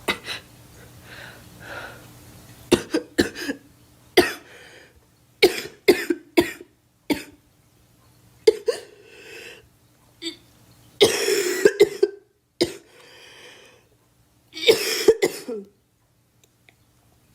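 A girl coughing repeatedly: short, sharp coughs in clusters, with a longer, louder coughing fit about eleven seconds in and another near fifteen seconds, separated by short quiet gaps.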